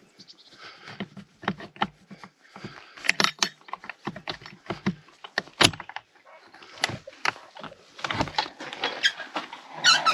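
Irregular clicks, knocks and rustles of someone handling equipment close to the microphone, with a denser run of rattling near the end.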